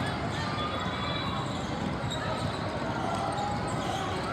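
Gym sounds of a youth basketball game: the ball being dribbled on the hardwood court over steady crowd and player chatter.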